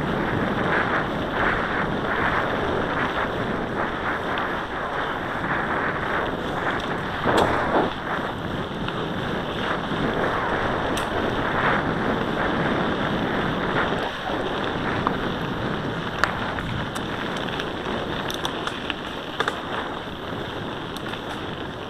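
Wind rushing over the microphone as a mountain bike rolls along a gravel forest track, with steady tyre crunch on the gravel and a few sharp clicks and rattles from the bike.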